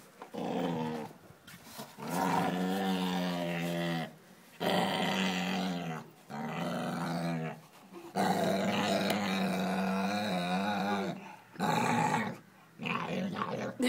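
A black dog growling at a puppy in a series of long growls, the longest about three seconds, broken by short pauses. It is guarding the stick it is chewing and warning the puppy off it.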